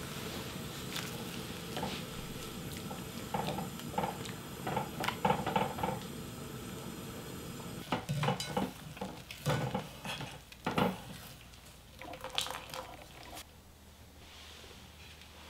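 Blanched bracken fern being stirred with wooden chopsticks in a stainless steel pot of simmering rice water, the chopsticks clicking against the pot over a steady hiss. About eight seconds in it changes to a mesh strainer scooping the fern out, knocking and scraping against the pot several times, then goes quieter.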